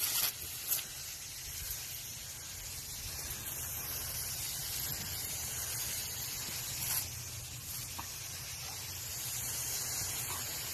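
Garden hose spray nozzle shooting a steady jet of water, a continuous hiss.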